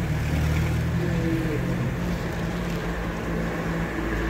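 Steady low rumble of a motor vehicle's engine running, with a faint hum on top.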